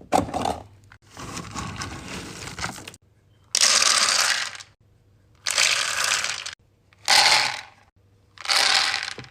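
Dry dog kibble poured into bowls: four separate pours of about a second each in the second half, after quieter noise at the start.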